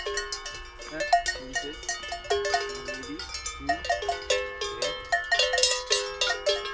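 Several cowbells worn by Brown Swiss (Braunvieh) cattle clanking irregularly as the animals move around, the bells at different pitches ringing on over one another.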